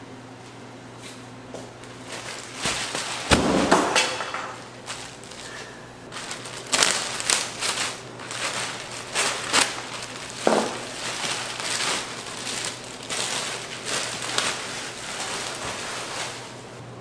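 Irregular knocks, clatter and scraping from hands-on kitchen work with a lot of loose short strikes, the loudest cluster about three seconds in, over a steady low hum.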